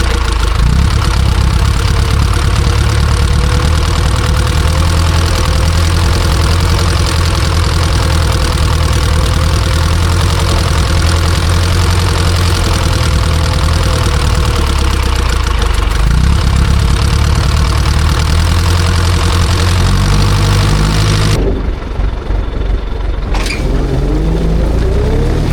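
Ursus C-360's four-cylinder diesel engine running steadily under load, pulling a disc harrow. About 21 seconds in the sound turns briefly muffled, then the engine pitch rises near the end.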